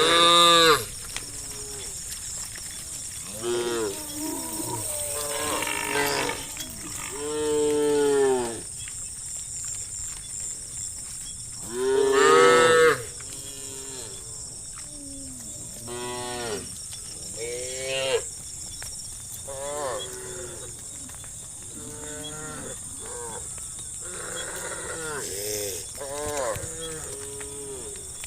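Cattle mooing: a herd of cows calling one after another at different pitches, the loudest calls at the very start, about eight seconds in and about twelve seconds in. A steady high hiss runs underneath.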